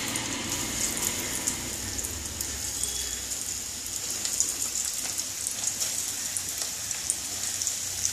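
Breadcrumb-coated chicken pakora pieces deep-frying in hot oil in a kadai: a steady sizzle with a dense spatter of small crackles as more pieces are dropped in one at a time.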